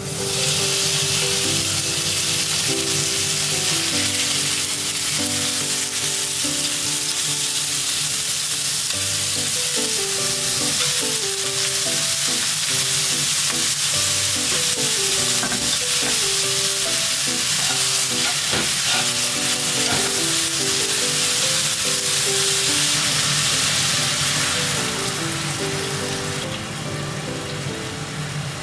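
Thin-sliced beef, then shaved burdock root, sizzling in hot oil as it is stir-fried with chopsticks in a nonstick frying pan. The sizzle eases near the end.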